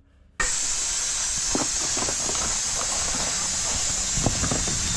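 A loud, steady hiss cuts in about half a second in. A few metallic clinks sound as long steel turf nails are scooped by the handful from a cardboard box.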